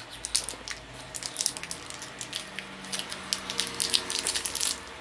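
Crinkling and rustling of a small shiny plastic packet being squeezed and handled, with quick irregular crackles.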